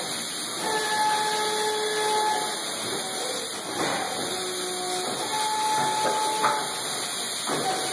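A plastic injection moulding machine and its take-out robot running: a steady hiss with held whining tones that come and go. There are short knocks about four seconds in and again near the end.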